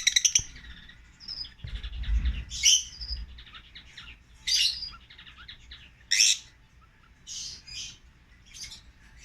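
Lovebirds chirping: a rapid chatter dies away in the first half-second, then sharp single high chirps come every second or two over soft twittering. A brief low rumble sounds about two seconds in.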